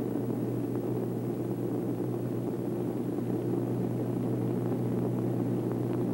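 Steady drone of a four-engined propeller airliner's engines in cruising flight, an even hum that does not change.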